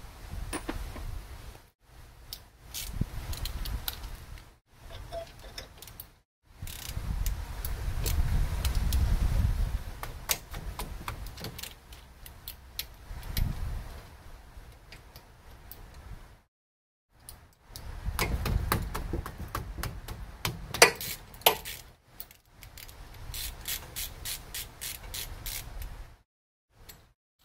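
Metal hand tools clinking and clicking against the front brake caliper and its bolts during brake work on a car, with a run of quick even ticks like a ratchet near the end, over a low rumble. The sound stops dead several times, as at edit cuts.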